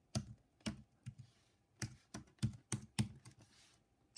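Computer keyboard keys being typed, about nine or ten separate keystrokes at an uneven pace.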